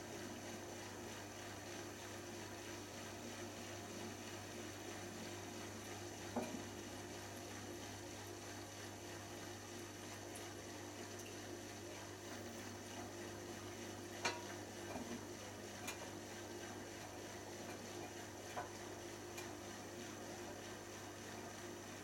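Miele W487 front-loading washing machine running in its final spin stage with a single pair of jeans: a steady low motor hum with water running through. Four or five short sharp clicks are scattered through it.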